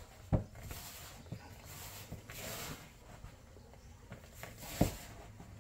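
Hands rubbing and squeezing a crumbly fruit-cake mix of flour, margarine, sugar and dried fruit in a plastic mixing bowl, giving soft rustling and squishing. Two short dull knocks stand out, one just after the start and one near the end.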